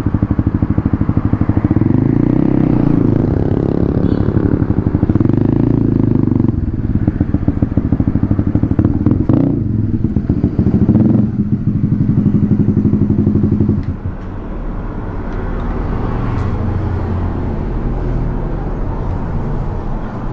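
Honda CB150R's single-cylinder engine running as the bike rides in and slows to an idle, then switched off about two-thirds of the way through, leaving steady street background noise.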